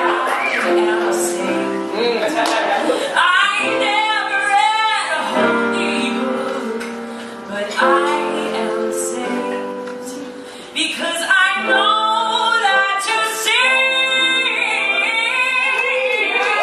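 A woman singing a song live into a handheld microphone, over long sustained notes beneath her voice. It grows softer partway through, then swells again about eleven seconds in.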